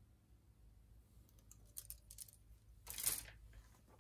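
Grey plastic model-kit sprues being handled: a few light plastic clicks and taps, then a brief louder rustle and clatter about three seconds in.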